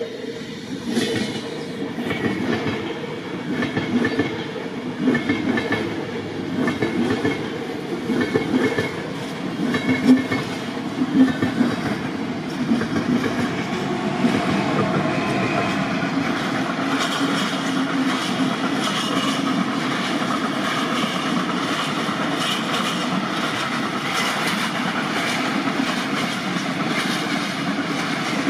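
A train passing close by, its wheels clattering rhythmically over the rail joints for the first dozen or so seconds, then settling into a steady rolling rush.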